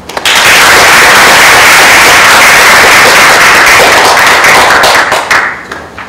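Audience applauding loudly, beginning abruptly and thinning to a few last separate claps about five seconds in.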